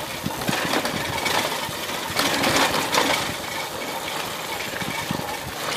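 TVS XL100 moped's small single-cylinder four-stroke engine running at low revs as it rolls downhill over a rough stony track, with irregular knocks and rattles from the bike jolting over stones.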